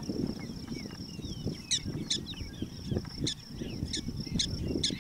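Short, sharp chirping calls starting about a second and a half in and repeating roughly every half second, over a steady high-pitched drone and a low rumble of wind on the microphone.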